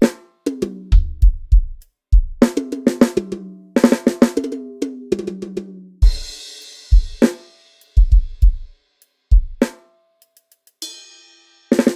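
Sampled drum kit (Addictive Drums 2) playing a sound-check pattern: spaced kick drum hits and snare strokes with quick tom fills stepping down in pitch. A cymbal crash rings out about six seconds in.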